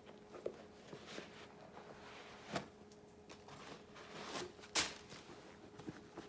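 Faint rustling and a few soft knocks from handling sneakers, the two clearest about halfway through and just before the end, over a low steady hum.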